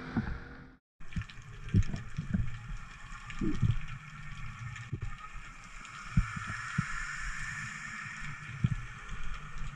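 Muffled underwater sound recorded through a camera's waterproof housing while freediving: a steady hiss of water with scattered dull thuds. Brief wind and boat noise cuts out just before a second in.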